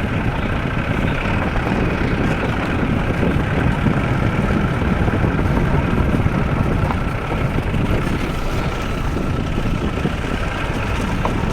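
Steady vehicle running noise: a constant low rumble of engine and road with a faint steady whine above it.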